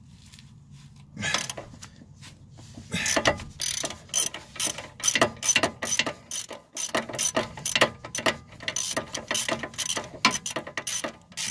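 Hand socket ratchet clicking in quick, irregular runs as a 17 mm brake caliper bolt is backed out, starting about a second in.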